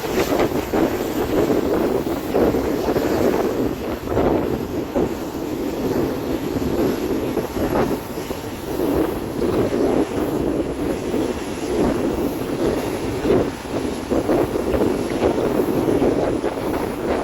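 Diesel-hauled passenger train running along the track, heard from on board: a steady rumble of wheels on rails that swells and eases every second or so.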